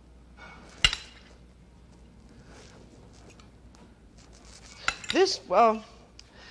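A single sharp clink of a fork against a serving plate about a second in, then soft sounds of food being shifted on the plate.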